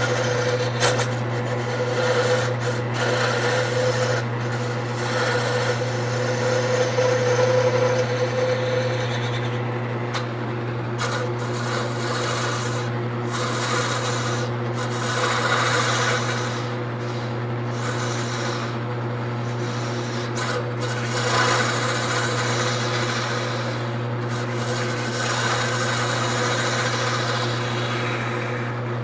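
Wood lathe running with a steady motor hum while a gouge cuts the spinning wood. The rough scraping swells and eases as the tool moves along, with several short breaks where the tool comes off the wood.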